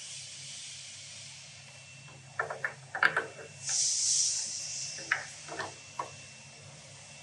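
Metal clicks and knocks as a cam is handled and fitted into the cam box of an injector test bench, a cluster of them about two and a half seconds in and single knocks later, with a brief hiss about halfway through, over a steady low hum.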